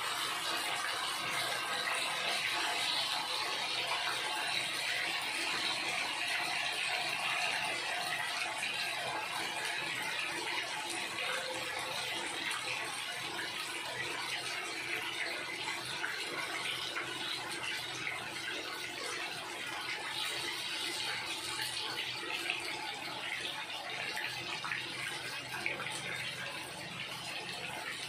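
Masala-coated fish pieces deep-frying in hot oil in a frying pan: a steady sizzle of bubbling oil that eases slightly toward the end.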